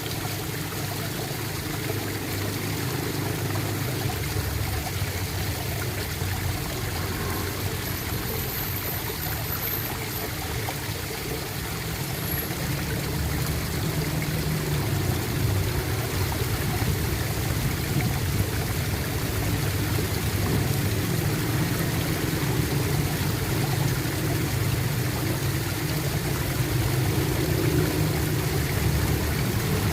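Running water gurgling and trickling steadily.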